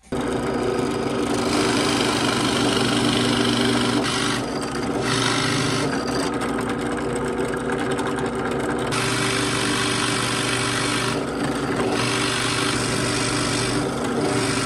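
Benchtop drill press running with a Forstner bit boring a flat-bottomed pocket into a wooden board. A steady motor hum sits under a scraping cutting noise that grows and fades several times as the bit is fed into the wood and eased back.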